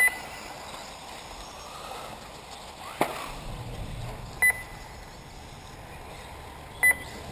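Three short, high electronic beeps from an RC race's lap-timing system, one at the start, one about four and a half seconds in and one near the end, each marking a car crossing the timing loop. A single sharp knock sounds about three seconds in.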